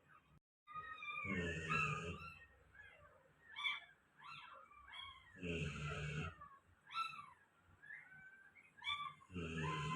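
Golden retriever snoring in its sleep: three rasping snores about four seconds apart, each a low buzzing breath with a hissy edge. Short high rising-and-falling squeaks come between the snores.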